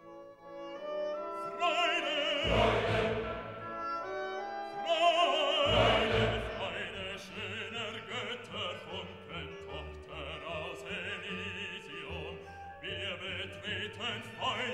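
Background music in a classical, operatic style, with a singing voice carried on vibrato over an accompaniment. The piece starts right at the beginning.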